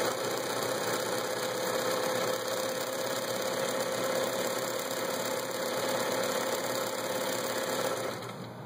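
Vintage Bernina Record 830 sewing machine running steadily as it sews one of its built-in stitch patterns, a motor hum with the needle mechanism working; it stops about eight seconds in.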